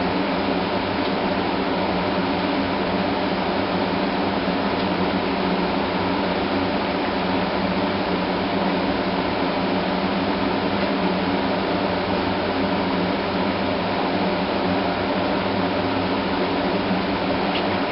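A steady mechanical drone with hiss and a constant hum, unchanging throughout, like a fan or air-conditioning unit running.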